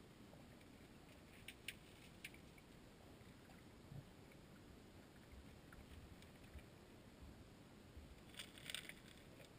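Near silence: a faint, steady low underwater rumble of creek water heard through a submerged camera, with a few faint sharp clicks about a second and a half in and a brief cluster of clicks near the end.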